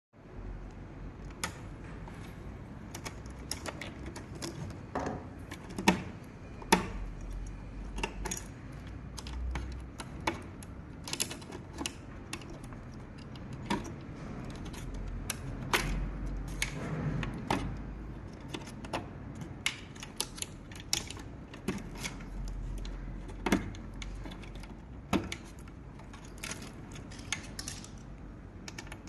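Irregular clicks, taps and small knocks of tools, screws and parts being handled while taking the mainboard out of an Artillery Sidewinder X3 Pro 3D printer, with two sharper knocks just before six seconds and around seven seconds in.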